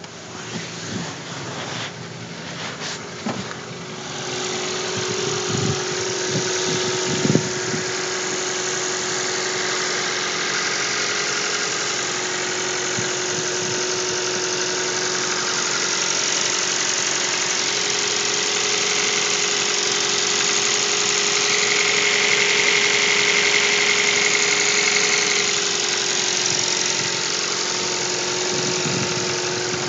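2012 Hyundai i30 engine idling cold with a knock, the cold-engine knock the owner is recording. A few sharp clunks come in the first seven seconds or so, then the engine runs steadily.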